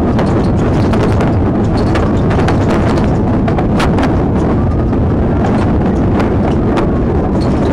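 Car driving fast across a rough crop field: a loud steady rumble with constant rapid knocking and rattling as it bounces over the ground.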